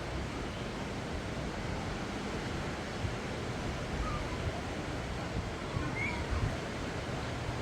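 Gulf of Mexico surf breaking and washing up the beach in a steady rush, with low wind rumble on the microphone and a few faint, brief high-pitched calls.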